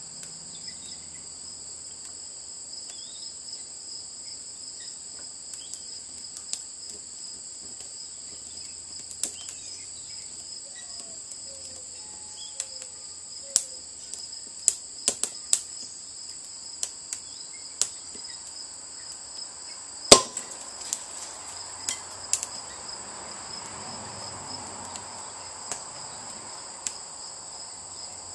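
Wood fire crackling in a metal retort, with scattered sharp pops, the loudest about two-thirds of the way through. Under it runs the steady, high chirring of crickets.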